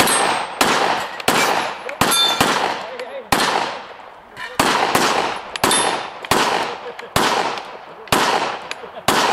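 A string of about fifteen gunshots, roughly two a second with a short pause near the middle, as steel targets are shot down, with faint metallic rings of hits on steel after some of the shots.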